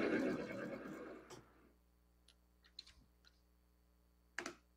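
Small import metal lathe running, its gear train whirring, then winding down and fading out within the first second and a half after power is cut. A few light clicks follow, and two short sharp knocks near the end.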